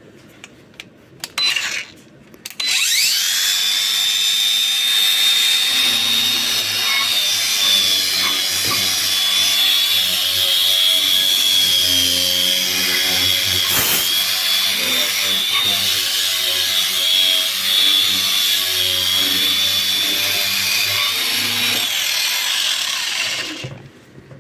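Parkside plasma cutter cutting: after a couple of clicks, a loud steady hiss with a high whine starts about three seconds in and runs for about twenty seconds before cutting off near the end. A low uneven hum sits underneath for most of the cut.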